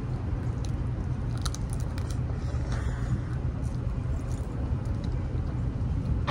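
Faint crackling clicks of boiled crawfish shells being peeled and pulled apart by hand, with chewing, over a steady low rumble.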